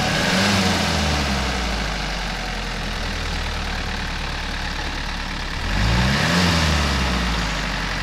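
An SUV engine running steadily, revving up and back down about six seconds in, over a steady hiss.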